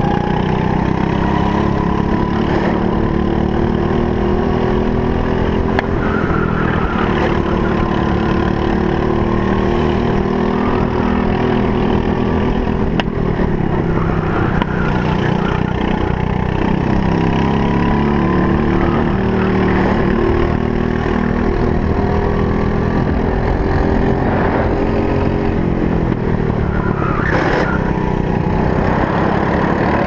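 Briggs & Stratton LO206 four-stroke single-cylinder kart engine running at racing speed. Its pitch climbs slowly and then drops off several times as the kart slows.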